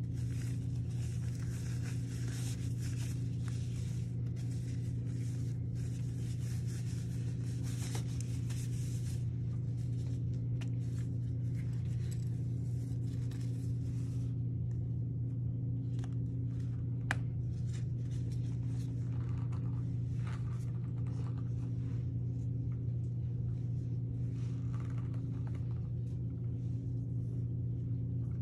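Steady low hum of a running machine, with plastic gloves and a bowl being handled over it: dense rustling for the first nine seconds or so, then scattered light clicks and rustles, including one sharp click about two-thirds of the way through.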